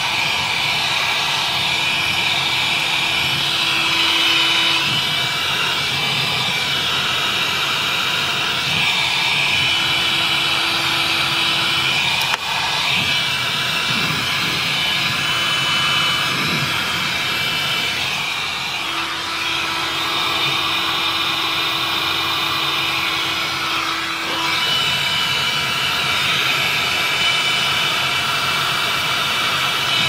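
Handheld heat gun running steadily, its fan blowing a loud even rush of hot air onto a frosted-over refrigerator evaporator coil to melt the ice by hand, the usual fix when a failed automatic defrost has iced up the coil.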